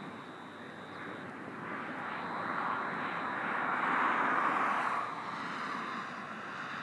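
Southern Shorthaul Railroad RL class diesel locomotives hauling a freight train, heard from a distance as an engine drone with a hiss. It swells to its loudest around four seconds in, then drops back about five seconds in.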